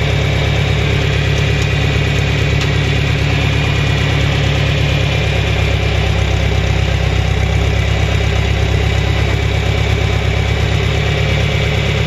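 John Deere 3010 tractor engine running steadily, heard up close from the operator's seat beside the exhaust stack.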